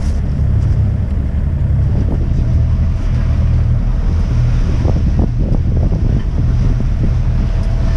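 Wind buffeting the microphone over the steady rush of water along the hull of a sailboat underway in choppy water, with a few brief knocks about five seconds in.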